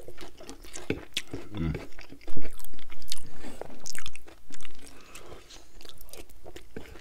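Close-miked chewing of loaded tater tots: wet mouth clicks, smacks and soft crunches, loudest in the middle stretch.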